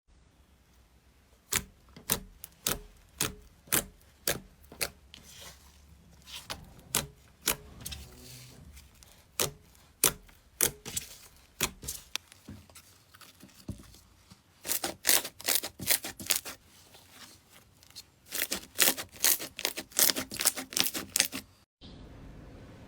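Slime being squeezed and poked close to the microphone, giving a run of sharp popping clicks, at first evenly about two a second, then irregular, with two quick dense flurries of pops. Near the end it cuts to a steady faint hiss.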